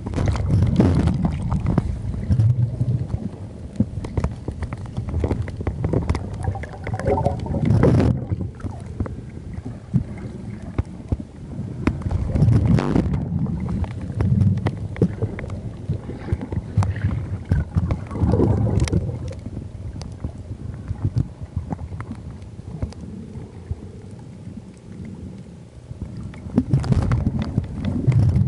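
Underwater camera sound: water rumbling and sloshing around the camera, swelling in surges every few seconds, with many small sharp clicks and crackles throughout.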